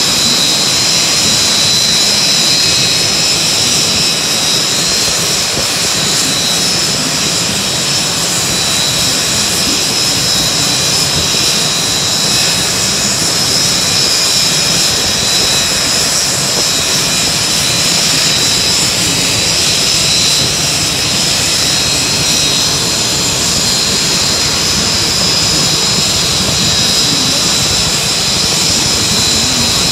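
Aircraft turbine engine running steadily, a high multi-tone whine over a constant rush of noise.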